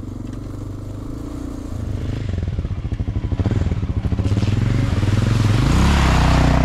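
Honda Dominator NX650's single-cylinder four-stroke engine running at low revs, rising in pitch near the end as the bike accelerates. Water splashes as the wheels go through a puddle.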